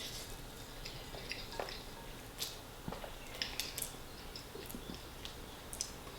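Someone eating spaghetti in tomato sauce: faint wet chewing and mouth sounds with scattered small clicks.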